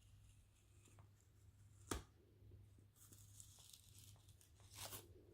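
Faint handling of packaging: a sharp click about two seconds in and brief tearing, crinkling rustles later on, over a low steady hum.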